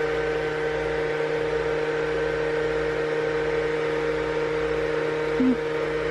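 Ventilation fan humming steadily, a constant drone with several fixed tones, and one brief louder blip about five seconds in.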